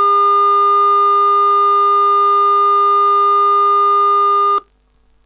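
Simulated 555-timer square-wave tone sent to the metal-detector circuit's speaker: one steady, buzzy note at a fixed pitch, the circuit's baseline sound with no metal near the coil. It cuts off suddenly about four and a half seconds in as the simulation is stopped.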